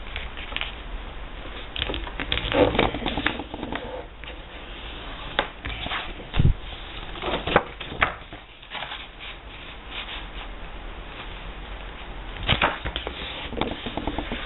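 A sheet of A4 paper folded by hand along ruled lines and its creases pressed flat: irregular rustling and crinkling in clusters, with one dull thump about six and a half seconds in.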